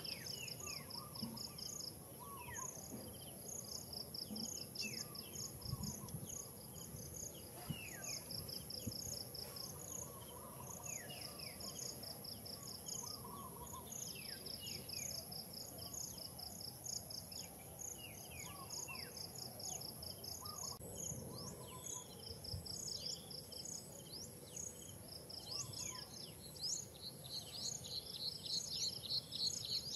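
Tropical forest insects chirping in repeated pulsed trains over a steady high-pitched insect drone. Birds give short falling whistled calls every couple of seconds throughout. A faster run of pulsed chirps grows louder near the end.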